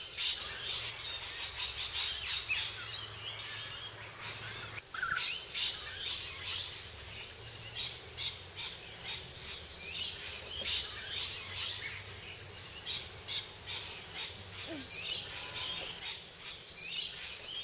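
Birds chirping and calling all around, many short chirps one after another, over a faint low hum.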